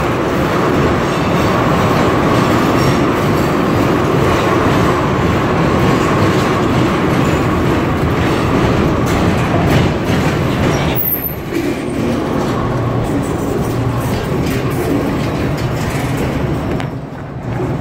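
Freight train of tank cars and hopper cars rolling past at close range: a steady rumble with the clatter of steel wheels on the rails. The sound dips briefly about eleven seconds in and again near the end.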